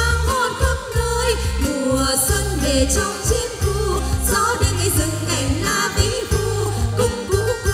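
A woman singing a Vietnamese song into a microphone over an amplified live band of drums, bass, guitars and keyboard, with a steady beat.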